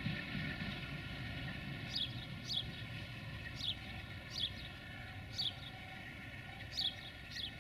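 A small bird repeats short, high, falling chirps, often in pairs, starting about two seconds in. Beneath it runs a steady low rumble.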